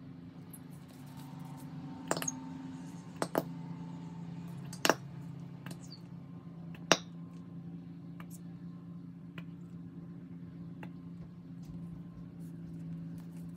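Plastic resin bottle, its cap and small plastic cups clicking and knocking on a tabletop while epoxy resin is poured out: a handful of sharp clicks about two, three and a half, five and seven seconds in, over a steady low hum.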